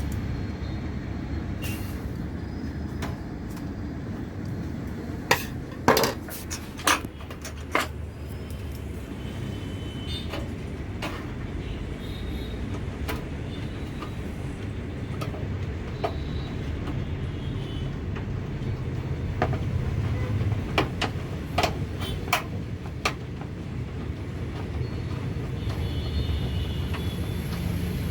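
Sharp metal clicks and taps from a graphics card being seated in a PC case and its bracket screwed down, loudest in a cluster about five to eight seconds in, over a steady low hum.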